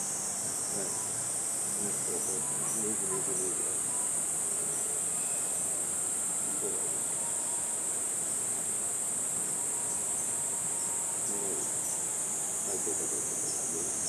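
A steady, high-pitched drone of summer insects calling in chorus.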